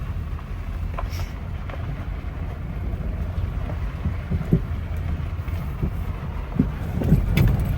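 Vehicle driving, heard from inside the cabin: a steady low rumble of engine and tyres, with scattered knocks and rattles from the road.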